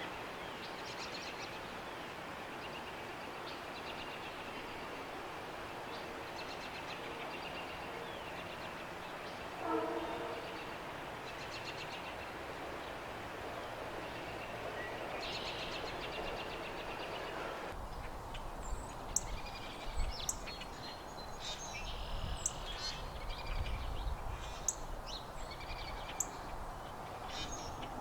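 Small birds chirping over a steady distant rumble, with a short horn-like tone about ten seconds in. After about eighteen seconds the background changes to sharper, closer bird calls and clicks over a low rumble.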